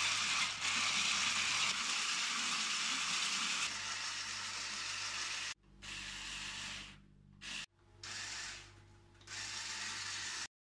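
Electric stick blender running in a steel bowl of thick yellow batter, a steady motor whir. After about five and a half seconds the sound cuts off abruptly and returns in several short stretches.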